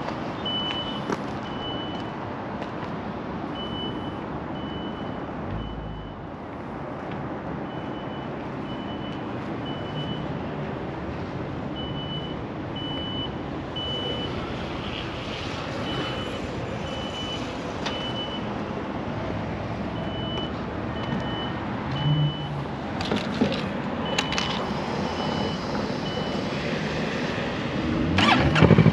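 Steady street traffic noise with a high electronic beep sounding on and off in short groups. Right at the end, the Kawasaki Z650's parallel-twin engine with its Two Brothers exhaust is started and catches.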